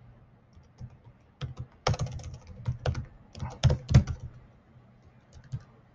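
Typing on a computer keyboard: quick runs of key clicks, in a burst from about a second and a half in and another around three and a half seconds in, with a few single taps near the end.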